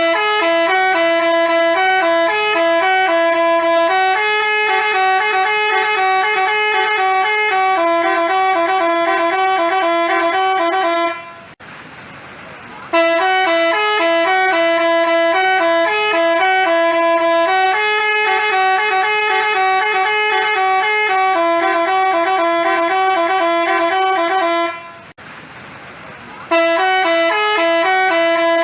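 Basuri telolet musical bus horn playing a multi-note tune. The same tune repeats three times, with short pauses between.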